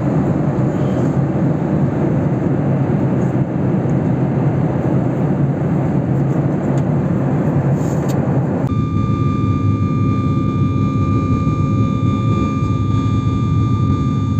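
Jet airliner engine and cabin noise at a window seat beside the engine: a loud, steady roar with a low hum. About eight and a half seconds in it changes suddenly to a roar with several steady whining tones over it.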